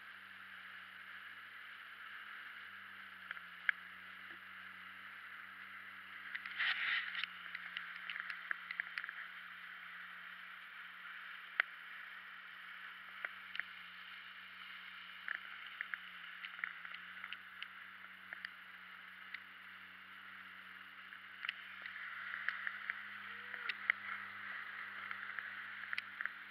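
Jet ski engine running with a steady low hum that wavers slightly in pitch, over rushing water and spray, with louder splashy stretches about a quarter of the way in and again near the end, and scattered sharp ticks of spray striking.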